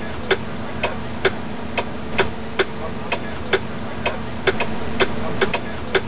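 Turn signal flasher of a 1978 Lincoln Continental Town Car clicking at an even pace, about two clicks a second, over a steady low hum.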